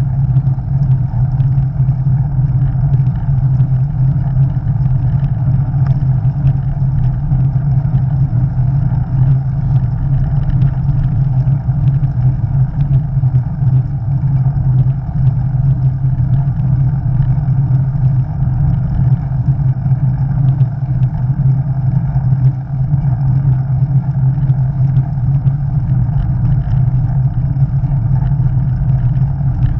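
Wind rushing over a cyclist's action-camera microphone while riding, a steady loud rumble.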